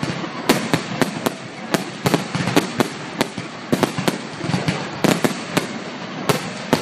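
Aerial fireworks display: a rapid, irregular series of sharp bangs from bursting shells, two to three a second, over continuous crackling.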